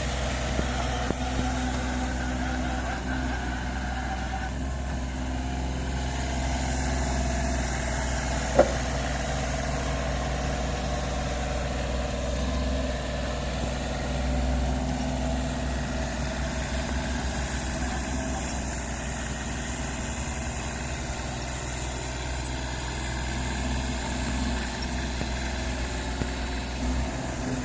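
Kubota KH-026 mini excavator's three-cylinder Kubota diesel engine running steadily while the machine pushes sand and rocks with its dozer blade, with one sharp clank about eight and a half seconds in.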